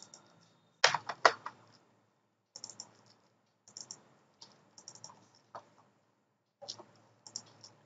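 Computer mouse clicking: a few louder clicks about a second in, then faint scattered clicks in pairs and small clusters.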